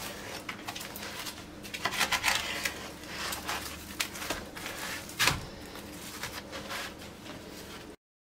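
Knife slicing through crisp, pan-fried gözleme (layered yufka pastry) on a wooden cutting board, the crust crackling and crunching in irregular clicks, with one sharp knock a little past five seconds. The sound cuts off suddenly near the end.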